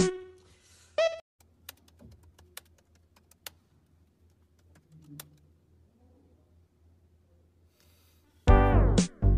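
A quiet room with a low hum and a few light clicks and taps, after a brief snatch of music about a second in; loud music starts again near the end.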